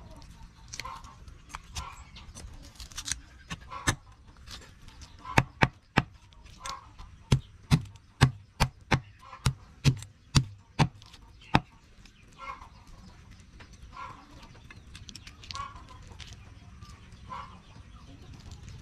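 Cleaver chopping raw chicken on a wooden chopping block: a few scattered knocks, then a run of about fifteen sharp chops, two or three a second, from about five seconds in to about twelve seconds in. Chickens cluck in the background throughout.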